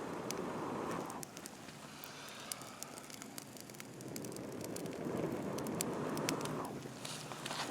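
Campfire crackling with scattered sharp pops, with two longer swelling rushes of noise, one fading about a second in and another building around the middle, as the fire is stoked.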